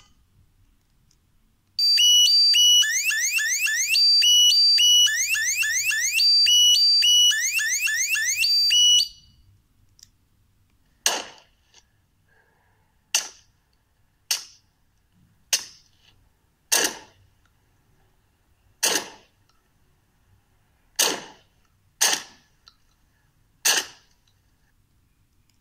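Car alarm sound effect played through a computer speaker, cycling through steady tones and rapid rising sweeps for about seven seconds. After a pause come nine sharp suppressed gunshots, one to two seconds apart, from a pistol and then a shotgun, also coming through the speaker.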